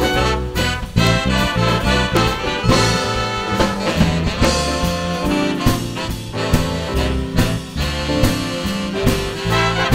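Big band swing music: a brass and saxophone section playing over a steady beat with bass and drums.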